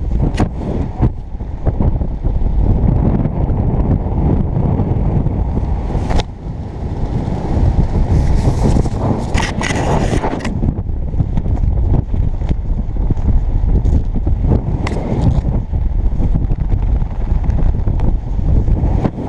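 Wind rumbling steadily over the microphone during a parachute canopy descent. About six seconds in and again around the middle come brief crackles and rustles of parachute nylon as the slider fabric is gathered by hand.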